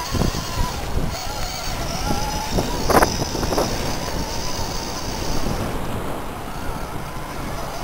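Electric motor and gear drive of a scale RC rock crawler whining as it crawls over sand, the pitch wandering with the throttle, with wind rumbling on the microphone. A sharp knock about three seconds in.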